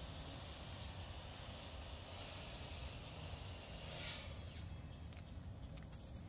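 Outdoor ambience: a steady low background rumble with faint, short, high bird chirps scattered throughout, and a brief louder swish about four seconds in.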